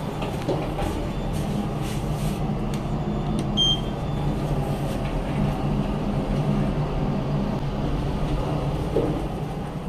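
Passenger elevator car running, a steady mechanical hum and rumble, with a short high beep about a third of the way in and a knock near the end as the doors open.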